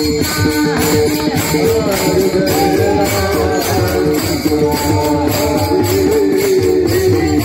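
Live Warkari devotional music, a panchapadi: a voice sings a wavering melody over a steady held drone, with small brass hand cymbals (tal) jingling in rhythm and a pakhawaj drum beneath. The singing comes in clearly a couple of seconds in.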